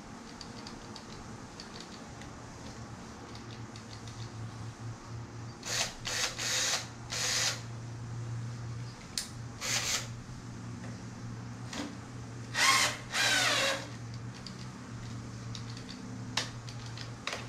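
12 V lithium cordless drill driving screws up into the underside of a wooden tabletop, whirring in a series of short bursts over a low steady hum. The battery is running flat.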